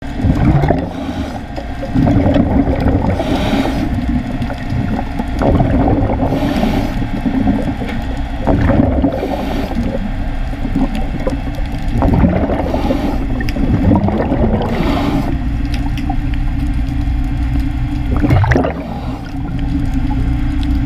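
Underwater sound of a diver breathing: exhaust bubbles gurgle out every few seconds over a steady low rumble.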